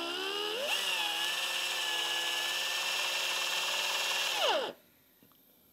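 Air-powered right-angle drill drilling into a 911 cylinder head. It spins up with a rising whine, runs at a steady pitch over an airy hiss for about four seconds, then winds down and stops, most likely taking the hole a little deeper.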